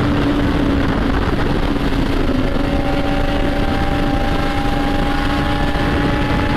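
Motorcycle exhaust at a steady cruising speed, a held engine tone mixed with heavy wind rush over the microphone.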